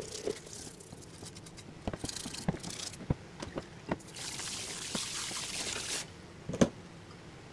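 Light clicks and knocks of small parts being handled, with a steady hiss of about two seconds in the middle that cuts off suddenly, and one louder knock near the end.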